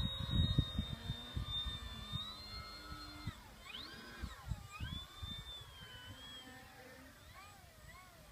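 Radio-controlled model airplane's motor and propeller whining high, holding steady at first, then swooping up and down in pitch several times as it manoeuvres, and fading near the end. Wind buffets the microphone with a low rumble, strongest in the first second or two.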